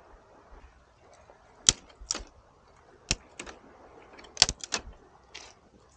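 Irregular sharp clicks and clinks of camp cooking gear being handled, about eight in a few seconds, the loudest two a little under two seconds in and past four seconds.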